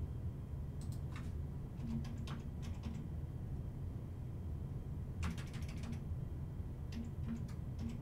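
Light clicks and taps in short scattered clusters over a low steady hum.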